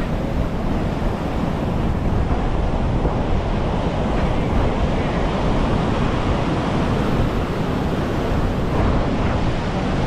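Ocean surf breaking on the beach as a steady wash of noise, with wind buffeting the microphone.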